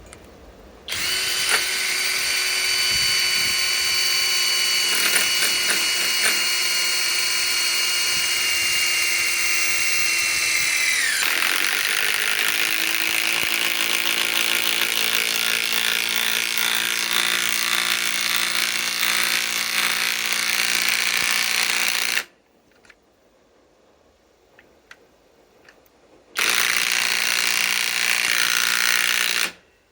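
Flex compact impact wrench driving a 6-inch lag screw. The motor first runs with a steady whine, then about a third of the way in the pitch drops as the load grows and the hammer mechanism starts impacting with a rapid rattle. It cuts off about two-thirds of the way through, and after a short pause a second burst of about three seconds comes near the end.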